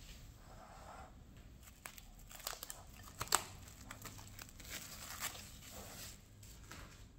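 Plastic cling film being peeled off the rim of a bowl, crinkling and crackling in a run of sharp clicks, the loudest crackle near the middle.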